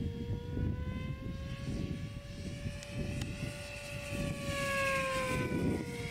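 Electric motor and propeller of a Quickie 500 RC model plane in flight, a steady whine that rises a little in pitch and then falls as the plane passes, loudest about five seconds in. A low rumble of wind noise runs underneath.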